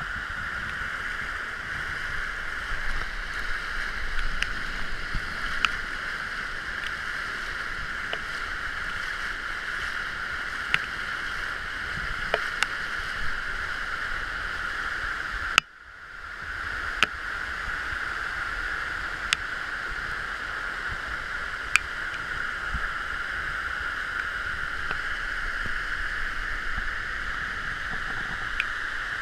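Steady rush of storm floodwater flowing fast over the ground, with scattered sharp ticks; the sound cuts out for a moment about halfway through.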